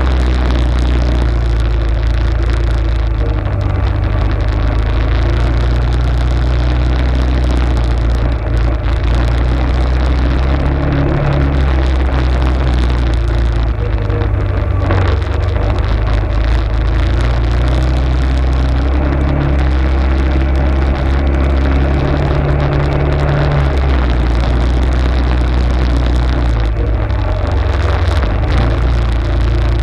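Arctic Cat ATV engine running steadily while riding, a constant low drone whose pitch shifts slightly a couple of times, under a steady hiss of wind and terrain noise.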